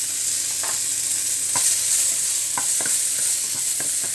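Food sizzling in a frying pan, a steady hiss, with a utensil clinking and scraping against the pan about ten times as it is stirred.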